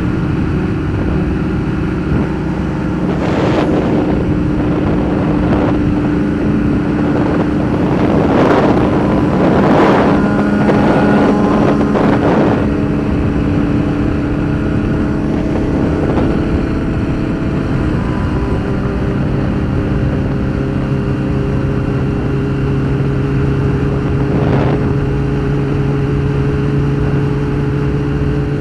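Motorcycle engines on a group ride, heard through a mic inside a rider's helmet: a steady engine note with wind rush, and several rising revs, the strongest about eight to ten seconds in. About two thirds through, the steady engine note drops lower.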